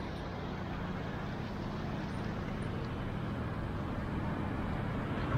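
City street traffic: a steady rumble of cars and taxis driving past, growing a little louder toward the end.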